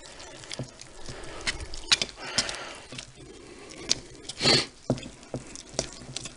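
Thick biscuit batter being stirred with a spoon in a bowl: irregular soft, wet pats and scrapes, with a louder swish about four and a half seconds in.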